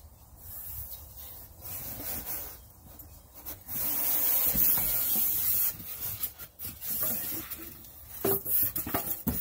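Packaging rubbing and scraping as a new ceramic bathroom sink is pulled from its box and unwrapped, louder for a couple of seconds in the middle, with a few knocks near the end.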